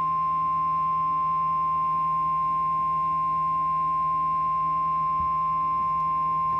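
NOAA Weather Radio warning alarm tone: a single steady, unbroken high tone of about 1050 Hz that signals a warning is about to be broadcast.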